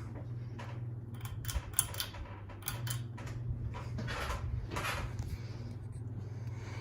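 Litex 52-inch ceiling fan running on medium speed with a steady low motor hum, with several clicks about a second and a half in and a couple of whooshing swells around four to five seconds.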